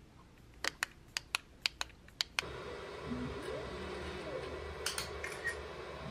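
About eight sharp clicks in quick succession. Then a Creality CR6-SE 3D printer running steadily while it prints, its stepper motors whining in short rising and falling glides, with a few light clicks near the end.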